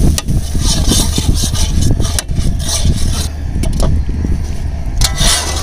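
Ladle scraping and stirring gram flour as it roasts in ghee in an iron kadai, in irregular strokes over a steady low rumble.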